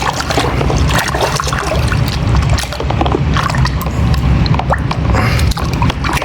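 Water sloshing and splashing in a bucket as a plastic toy is washed by hand, with many small irregular splashes and knocks.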